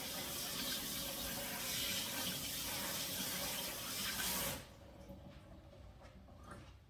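Water running from a faucet as black turmeric roots are rinsed under it, a steady rush that cuts off about four and a half seconds in when the tap is shut.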